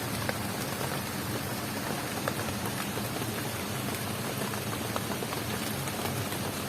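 Steady rain: an even hiss with scattered ticks of single drops.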